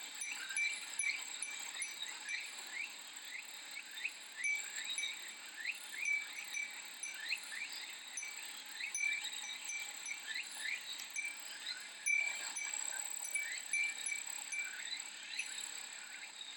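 Cicadas singing in steady high-pitched tones, with many short gliding chirps and a Japanese glass wind chime (furin) tinkling now and then.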